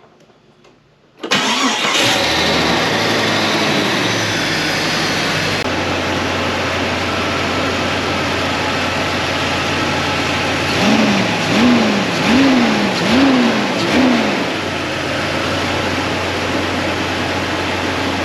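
Jeep Cherokee XJ's 4.0-litre inline-six, fitted with a new flywheel, starting about a second in and settling into a steady idle. Near the middle it is revved five times in quick succession, then drops back to idle.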